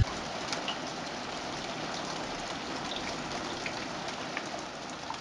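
Steady heavy rain falling, an even hiss dotted with sharp ticks of individual drops, fading a little near the end.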